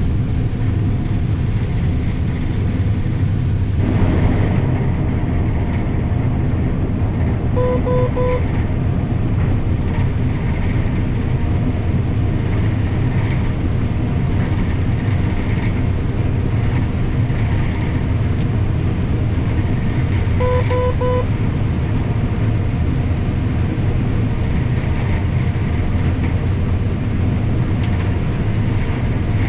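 An S660 combine running steadily under load while harvesting soybeans, a dense, even drone. Twice a short run of three quick electronic beeps sounds over it, about eight seconds in and again about twenty seconds in.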